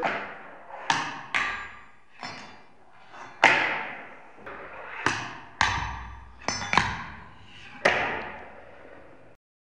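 Fingerboard clacking on a wooden tabletop and a fingerboard rail during tricks: about ten sharp clacks at irregular intervals, each ringing out briefly. The sound cuts off suddenly near the end.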